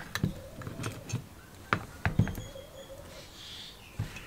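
A series of short metal clicks and taps as a piston is fitted onto the connecting rod of a Robin EC10 two-stroke engine's crankshaft, over a faint steady hum.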